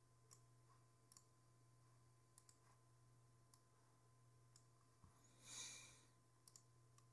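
Near silence with a low steady hum and a few faint, scattered computer mouse clicks. A short soft hiss about five and a half seconds in.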